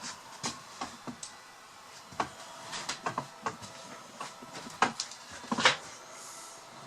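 Irregular sharp clicks and knocks, about fifteen in a few seconds, over a faint steady hum.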